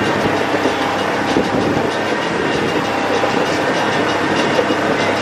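Motorboat running at speed over the water: a steady, loud rush of engine, water and wind with a fast rhythmic slapping texture.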